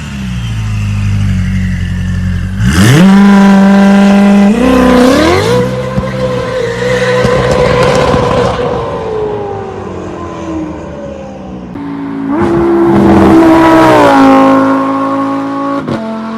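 A high-performance car engine revving hard: a sharp rise in revs about three seconds in, held high with pitch steps, then easing off, and a second rev-up near the end. It cuts off suddenly.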